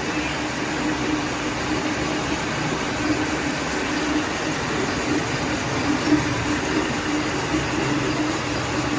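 Milling machine cutting teeth into a large gear rack: a steady machining noise with a constant hum underneath.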